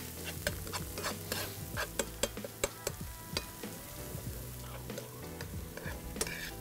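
Chopped shallots and lemongrass frying over low heat in peanut oil, with a faint sizzle. A utensil stirs and scrapes around the frying pan in many light clicks and taps.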